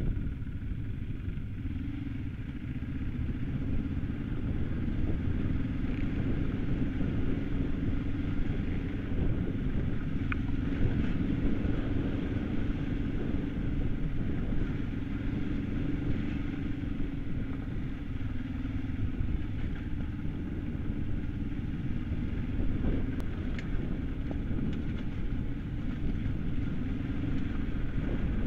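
Kawasaki KLE 500's parallel-twin engine running at a steady, near-constant pitch while the motorcycle rides over a loose gravel trail, heard from on the bike over a dense rumble of wind and tyre noise.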